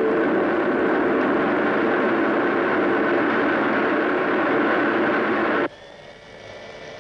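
Hydroelectric turbines and generators running, a loud, steady rushing noise. It cuts off suddenly about five and a half seconds in, leaving a faint hum with a few steady tones.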